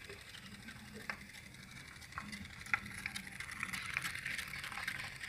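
Homemade tin-can pop-pop (otok-otok) boat running on water, its little steam engine making a fast, steady rattle with a few sharper clicks.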